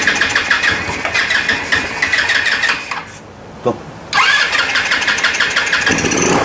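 Electric starter cranking a 150cc GY6 scooter engine that has sat unused for about two years. It cranks in two bursts, stopping for about a second with a single click, then cranking again.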